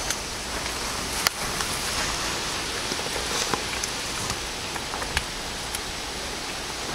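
A cat biting and crunching thin kiwi-vine stems: scattered sharp, irregular crunches over a steady hiss.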